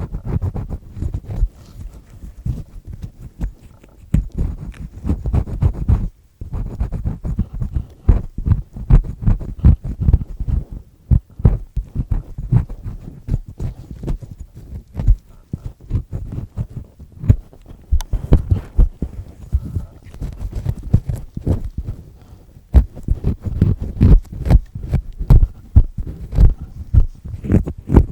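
Earpick with a black triple-disc tip scraping and grinding inside an ear close to the microphone, peeling away earwax: dense, irregular scratching and crackling with a heavy low rumble, coming in uneven bursts.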